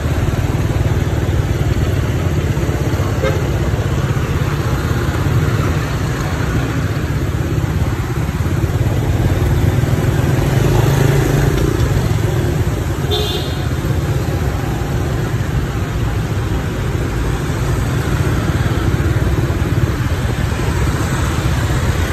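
Steady low engine and road rumble of a motorbike riding in city traffic, with a short high horn toot about halfway through.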